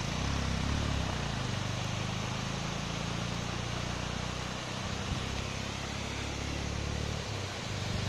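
Steady rush of water from a small waterfall spilling down a rock face, with a low rumble underneath.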